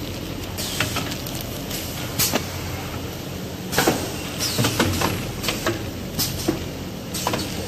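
Clear plastic packaging film around paper rolls crinkling and rustling in irregular bursts as fingers grip and press it, over a steady low hum.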